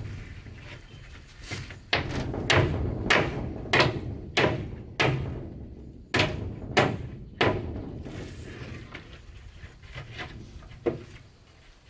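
A run of about ten sharp tool blows on wood, roughly two a second, each with a short ringing tail, then a single fainter knock near the end.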